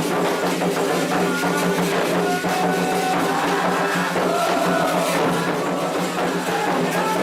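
Candomblé ritual music calling the orixás: atabaque hand drums beating a steady rhythm, with voices singing over them.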